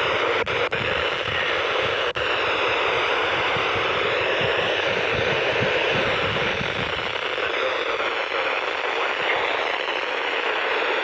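Steady radio static hiss from a weather radio receiver, with a few brief dropouts in the first two seconds.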